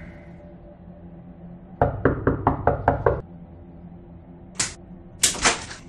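Rapid knocking on a door, about seven quick knocks in a second and a half. A few short, sharp hissing noises follow near the end.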